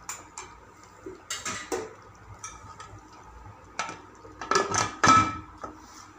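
Aluminium pressure cooker lid knocking and scraping against the pot as it is lowered and fitted on, with a few sharp metal clanks and the loudest clatter about four and a half to five seconds in.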